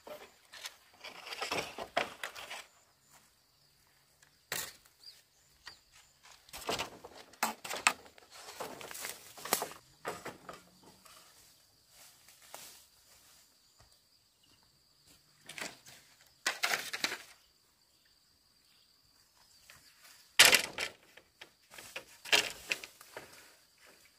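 Long dry bamboo poles being handled and laid across a bamboo trellis frame: irregular rustles, scrapes and knocks of bamboo and brush, the sharpest knock about twenty seconds in.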